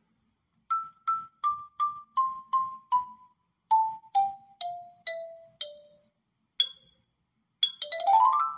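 Short intro music jingle of single struck notes, about a dozen, stepping down in pitch. A quick rising run of notes follows near the end.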